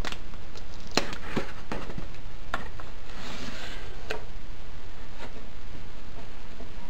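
Cardboard mailer box being opened by hand: a few sharp clicks and taps as the flaps are pulled free, and a short rustle about three seconds in, over a steady low background hum.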